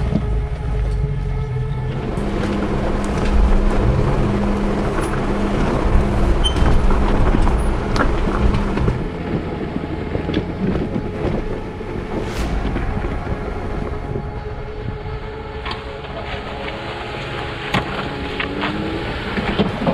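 Jeep driving off-road: a steady low engine and drivetrain rumble, with scattered knocks and rattles throughout.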